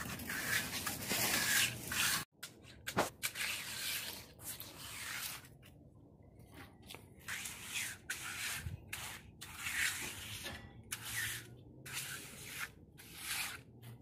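Hand trowel scraping and rubbing across wet concrete in repeated uneven strokes, smoothing the surface of a freshly poured slab, with a short break about two seconds in.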